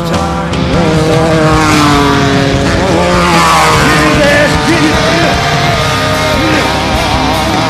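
Off-road desert race vehicles' engines running hard, their pitch rising and falling as they rev.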